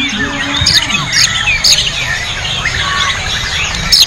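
White-rumped shama singing: a fast, varied run of whistles and chirps with a few sharp high notes. Many other caged songbirds sing over and behind it.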